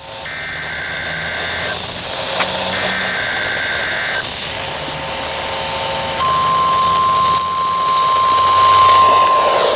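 Emergency Alert System monthly test received over a radio: two screeching digital header bursts about a second apart, a further tone burst, then from about six seconds in a long steady single-pitch alert tone. A steady hiss runs underneath.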